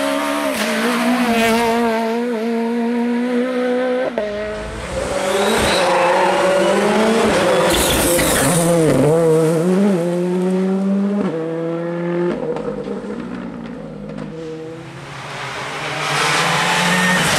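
Rally car engines revving hard as several cars pass one after another, among them a Peugeot 208, a Ford Fiesta and a Renault Clio. The pitch climbs and then drops sharply at each gear change, several times over.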